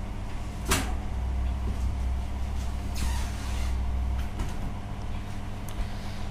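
Steady low mechanical rumble with a faint steady hum above it, and one sharp click about a second in.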